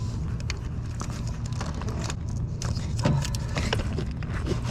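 Scattered clicks, small knocks and rattles of parts and clips being handled in a car's engine bay, with a sharper knock about three seconds in, over a steady low rumble.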